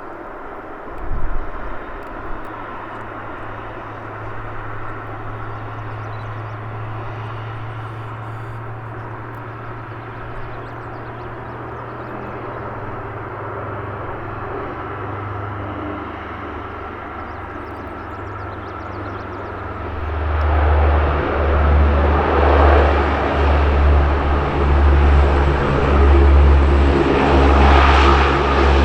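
Airliner engine noise at an airport: a steady hum with a low drone, and a brief knock about a second in. About twenty seconds in, an aircraft comes much closer and gets a lot louder, with a pulsing low throb.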